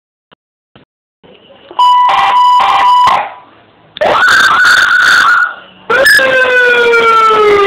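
Electronic motorcycle police siren sounding three short bursts of different tones: first a stuttering steady tone, then a tone that rises quickly and holds, then one that slowly falls in pitch. Two faint clicks come before the first burst.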